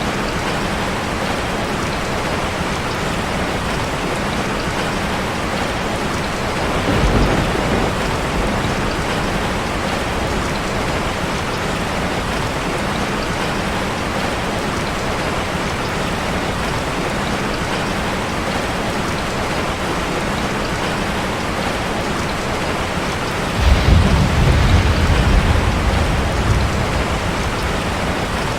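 Steady rain falling on a street, with two rolls of thunder: a short one about seven seconds in and a longer, louder one near the end lasting about four seconds.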